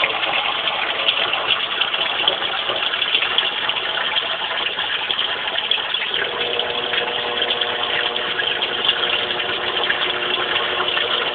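Sump pump running and moving water after heavy rain, a steady gushing rush of water; a faint steady tone joins in about six seconds in.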